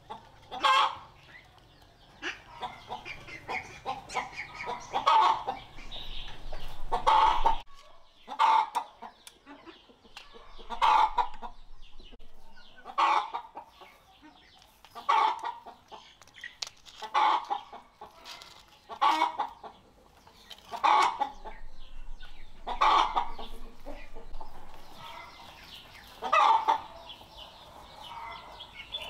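Chicken clucking in a steady series of short, loud calls, one about every two seconds.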